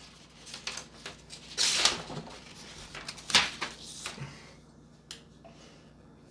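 Sheet of paper rustling and swishing as a utility knife's razor blade slices through it, in a few short strokes, the two strongest about two and three and a half seconds in, followed by a single light click.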